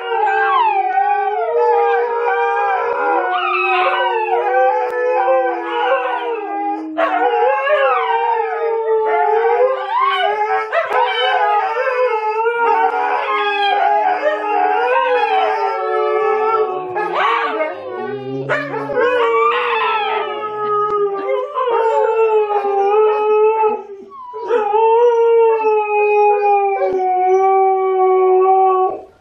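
Siberian huskies howling together: long, overlapping, wavering howls that glide up and down in pitch, with a brief pause near the end.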